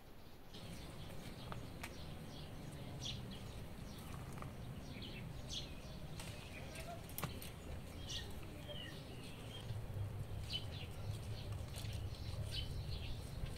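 Scattered short bird chirps over a steady low rumble, with light rustling of mulberry leaves and twigs as the berries are picked by hand.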